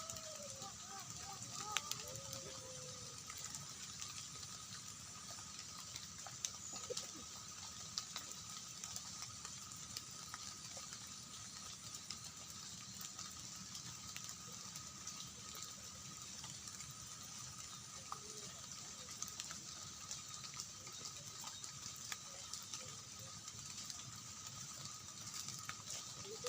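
Steady outdoor ambience: a constant hiss with two unchanging high tones and scattered faint clicks.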